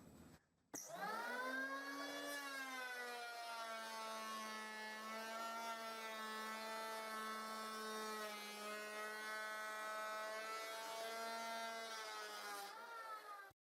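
Handheld electric power planer running while planing a wooden strip: its motor and cutter head whine up to speed about a second in, the pitch settles a little lower, then holds steady. The whine cuts off abruptly near the end.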